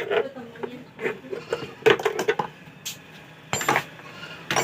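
Irregular clicks, knocks and clatter of hand tools on a mixer grinder's housing as it is being taken apart to reach the motor.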